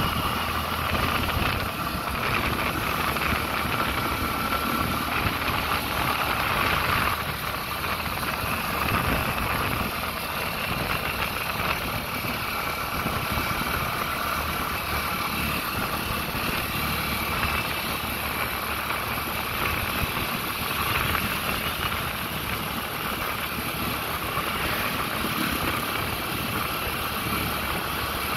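A vehicle running along the road: steady engine and road noise, a little louder for the first seven seconds or so.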